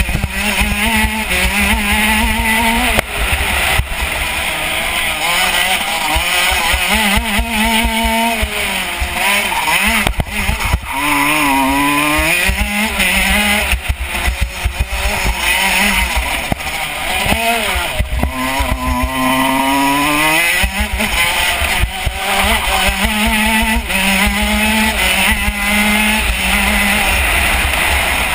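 KZ125 shifter kart's 125cc two-stroke single-cylinder engine at racing speed, its pitch climbing and dropping again and again as it accelerates and slows through the corners, over a steady rushing hiss from the onboard microphone.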